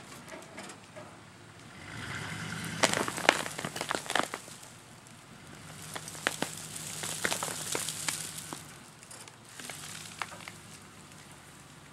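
Tree stump's roots cracking and snapping as a steel cable pulls it over and tears it out of the ground, in bursts of sharp crackles about three seconds in, again around six to eight seconds, and briefly near ten seconds. A pickup truck's engine runs low under each burst of pulling.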